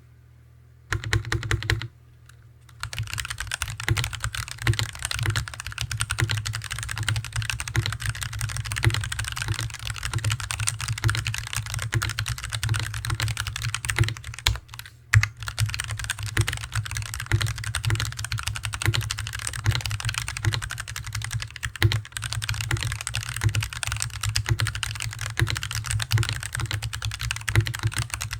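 Continuous fast typing on a Hansung TFG ART mechanical keyboard with stock Artbox Red linear switches and untuned stabilizers, with a heavy low desk resonance under the keystrokes. The typing starts about a second in and pauses briefly soon after.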